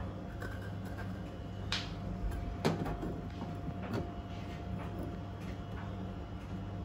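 Stiff, canal-corroded metal herb grinder being twisted open by hand: a few short scrapes and clicks as the halves come apart, the loudest about two and a half seconds in. A steady low hum runs underneath.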